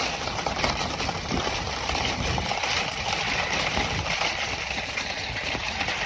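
Car on the move: steady engine and road noise, with tyres running over a snowy, uncleared road.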